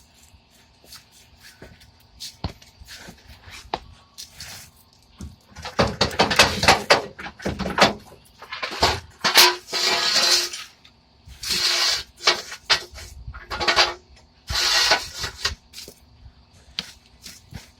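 Scattered metallic clicks and knocks, with a dense run of clattering about five to eight seconds in, followed by several short bursts of rushing noise.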